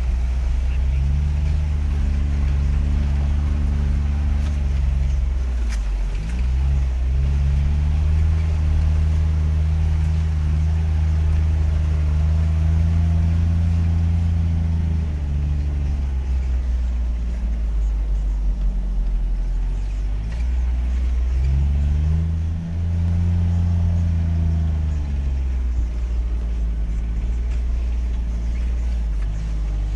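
Off-road 4x4 vehicle's engine, heard from inside the cab while driving through mud. Its low note drops and climbs again several times as the revs change.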